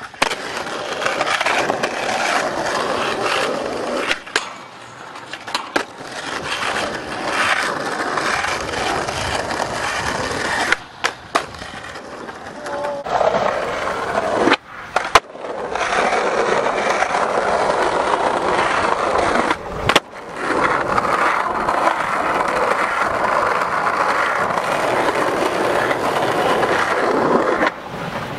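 Skateboard wheels rolling on concrete, with sharp clacks of tail pops and board landings. The sound changes abruptly several times between takes.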